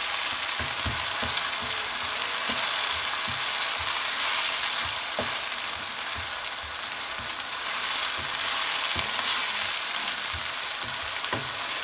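An onion, tomato and green chilli masala sizzling in hot oil in a non-stick frying pan as it is fried down (bhuna) for a curry base. A wooden spatula stirs it, with soft knocks against the pan now and then.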